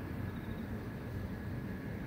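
Steady low rumble of city traffic, with grass insects chirping faintly above it as a thin high trill and a steady high tone.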